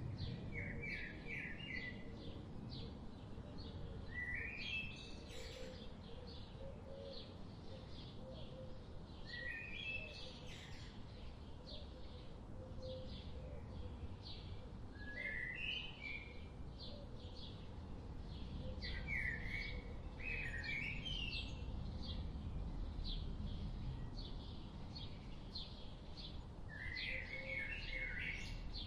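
Wild birds singing: a short, rising, stepped phrase repeated every few seconds over a steady run of rapid high ticks about twice a second, with a low rumble of background noise.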